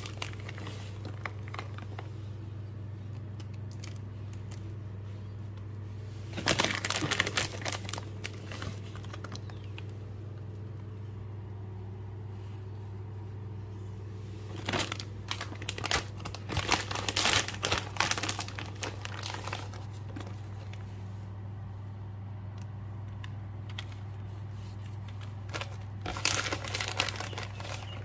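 Crinkling and rustling in three spells of a few seconds each, as shredded cheese is handled and sprinkled over a paper-lined baking tray, over a steady low hum.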